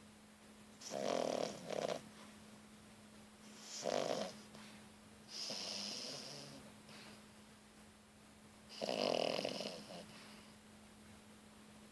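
Three-month-old French bulldog puppy snoring in her sleep: four snoring breaths a few seconds apart, the first in two quick parts and the third a longer, higher-pitched breath. The snoring is typical of a flat-faced breed's short airway.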